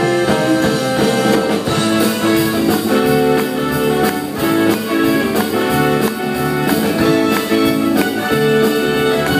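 Live rock-and-roll band playing an instrumental break with no singing: electric guitar over keyboard and drums, with a steady beat.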